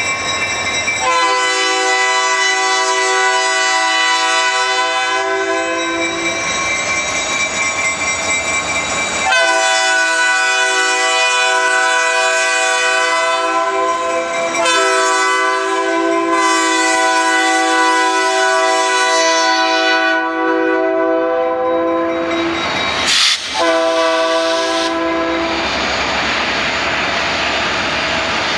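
The lead SD40T-2 locomotive's air horn, a chord of several tones, sounds the grade-crossing signal: two long blasts, a short one, then a final long one held for several seconds. After the horn stops, near the end, the rumble of the passing diesel locomotives is heard.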